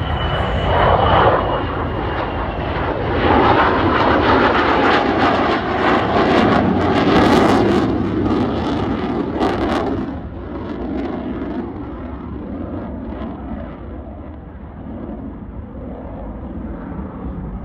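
Jet noise from an F-35A Lightning II's single turbofan engine as it flies a display pass. The roar is loud and crackling through the middle, then drops away about ten seconds in and begins to build again near the end.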